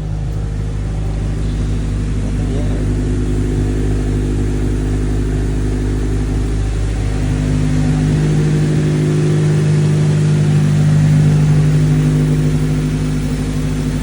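2004 Honda Civic Si's K-series four-cylinder engine idling steadily with Seafoam treatment in the crankcase, running to clean out carbon and sludge. Its tone shifts slightly about seven seconds in.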